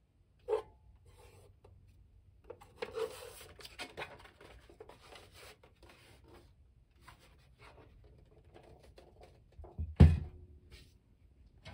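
A plastic-cased Sony CFD-S401 CD/cassette boombox being handled on a wooden table, with rubbing and packing-wrap rustle. There is a short knock about half a second in, and a loud, deep thump about ten seconds in as the unit is set down on the table.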